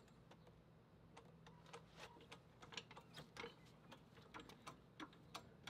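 Faint, irregular clicks and knocks from a hydraulic floor jack being worked by its long handle under the car.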